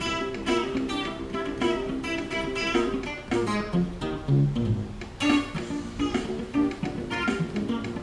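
Fender Stratocaster electric guitar playing a funk improvisation over a funk backing track with a prominent bass line, which has a run of low moving notes around the middle.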